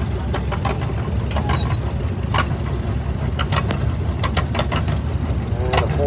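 Antique tractor engine running at low speed as it drives past, a steady low rumble with scattered sharp clicks.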